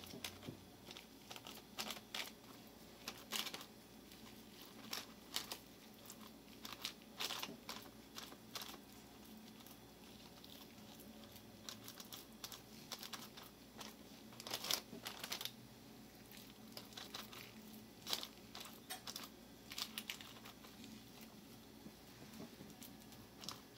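Faint, scattered crinkling and rustling of wax paper as hands pat and shape raw ground beef into loaves in a paper-lined pan.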